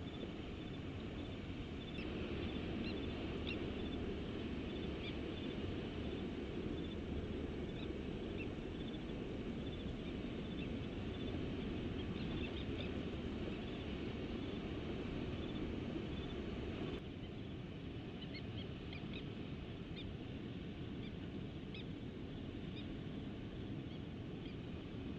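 Short, high-pitched chirping calls from an unidentified animal close to the nest, which the uploader takes for a bird, scattered over a steady background hiss that drops a little about 17 seconds in.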